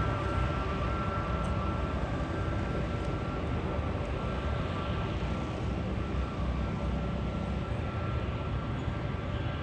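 Aircraft engines running steadily: a continuous low rumble with a steady high whine over it.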